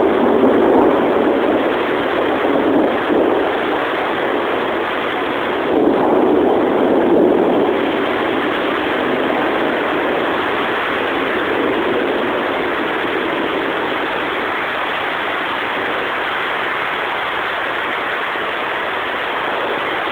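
Heavy rain falling steadily, with thunder rumbling in several swells during the first seven or eight seconds.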